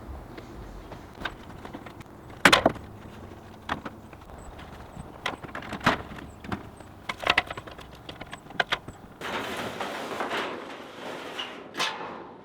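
Wooden boards being handled: a series of sharp wooden knocks and clatters, the loudest about two and a half seconds in, followed near the end by a few seconds of rough scraping of wood on wood.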